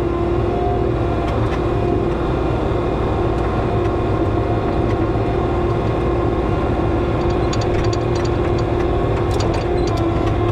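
Bobcat skid steer's engine running steadily under load as it drags a chained log up a steep slope, with a run of short clicks in the last few seconds.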